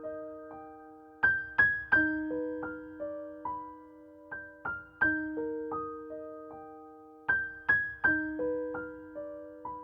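Background music: a gentle solo piano playing single notes that ring and fade, in a short phrase that repeats about every three seconds.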